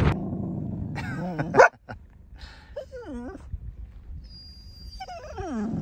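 Labradoodle whining in three short calls that slide in pitch, the first ending in a sharp, loud rise about one and a half seconds in.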